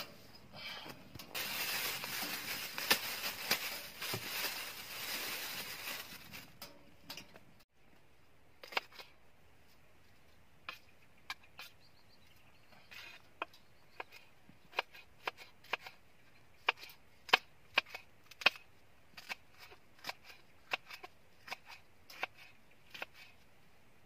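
Knife chopping vegetables against a plate: a long run of sharp, irregular taps, about one or two a second. Before the chopping, a few seconds of rustling.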